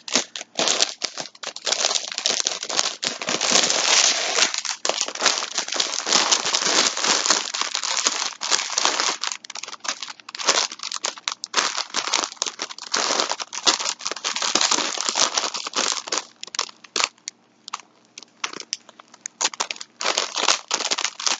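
Plastic bag around a pack of yarn crinkling and rustling as it is handled: a long, dense stretch of crackling that thins to scattered crinkles in the last few seconds.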